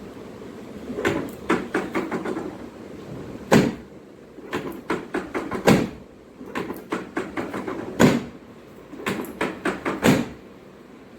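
Quick runs of knocks and thumps from hands-on chiropractic work on a patient, starting about a second in. Four louder thumps stand out, about two seconds apart.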